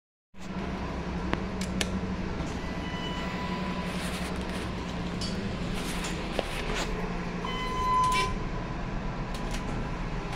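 Thyssenkrupp hydraulic glass elevator at a landing: a steady low hum with scattered clicks and taps, and a short electronic beep about eight seconds in, the loudest part.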